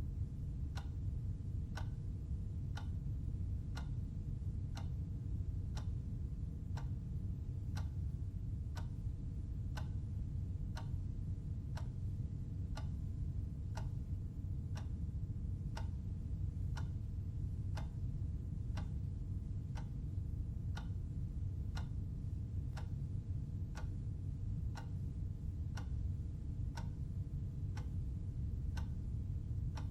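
Timer clock ticking evenly about once a second over a steady low hum.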